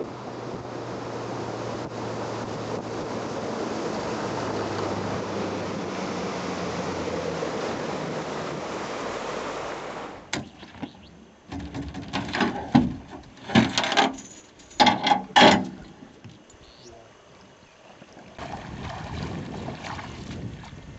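Boat motor running steadily under way, with wind and water rush. After a sudden change about ten seconds in, a handful of loud knocks and clunks.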